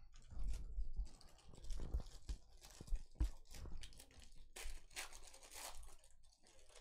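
Trading-card pack being torn open by hand: the clear plastic wrapper crinkles and tears in irregular crackles, with a few dull knocks from handling.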